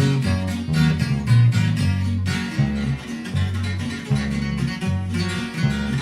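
A norteño band playing an instrumental break between sung verses: strummed guitar over a moving bass line.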